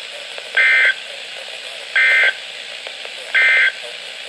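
Three short bursts of EAS SAME digital data tones, the two-tone modem-like signal of an emergency alert broadcast, each about a third of a second long and about a second and a half apart.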